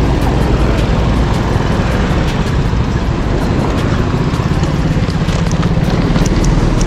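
Steady wind rush and road noise from a bicycle riding in traffic, with a motor vehicle's engine humming nearby in the second half.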